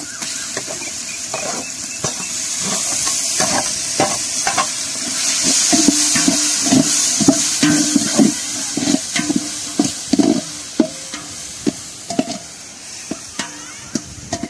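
Onions, tomatoes and green chillies sizzling in oil in a large metal pot as ginger-garlic paste is stirred in with a perforated metal ladle that scrapes and knocks against the pot. The sizzle grows louder a couple of seconds in, and through the middle the ladle knocks about twice a second, the pot ringing with each knock.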